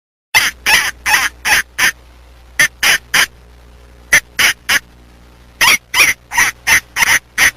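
A waterfowl calling with short, harsh, honking calls in quick runs of three to six, with brief pauses between runs.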